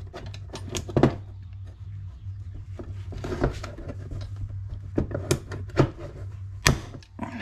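Hand-squeezed pop rivet gun working a rivet: a string of separate metal clicks and snaps as the handles are squeezed again and again, with a few sharper snaps, the loudest near the end, as the rivet sets.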